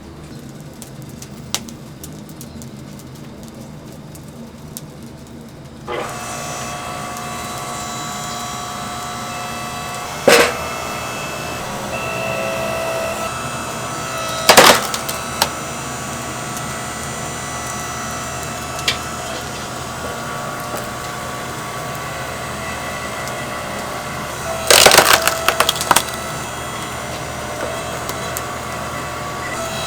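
Sharp knocks and cracks of wood: one about ten seconds in, another about four seconds later, and a quick cluster near the end. Underneath them a steady machine hum starts about six seconds in.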